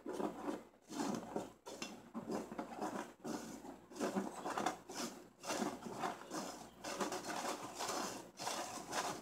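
Flour being sifted by hand through a wire-mesh strainer shaken over a glass bowl: a soft, rhythmic rustling and scraping, about one shake a second.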